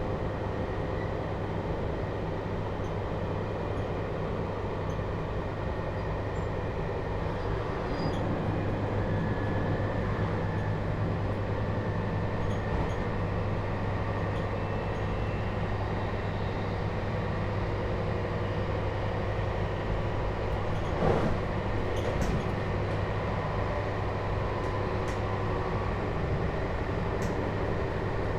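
Running sound inside a JR Hokkaido 721 series electric train's motor car fitted with Toshiba GTO-thyristor inverter traction equipment: a steady low hum and rumble from the motors and wheels on the rails, a little louder from about a quarter of the way in. A couple of sharp clicks come about three-quarters of the way through.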